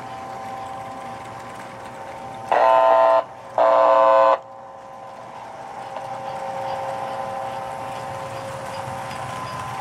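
American Flyer Hudson toy steam locomotive running with a steady whine, blowing its whistle in two blasts about two and a half and three and a half seconds in. The running sound grows louder in the second half as the train comes closer.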